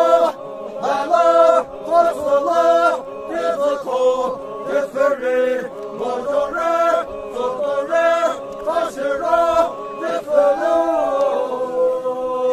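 Poumai Naga men chanting together in a traditional song, several male voices holding short notes in unison and breaking off every second or so.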